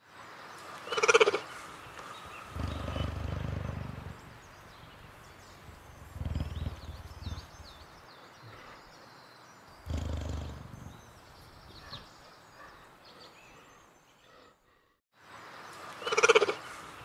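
Recorded cheetah vocalisations: a loud, short, high call about a second in, followed by three low rumbling growls spread over the next ten seconds. After a brief silence the recording starts over with the same loud call near the end.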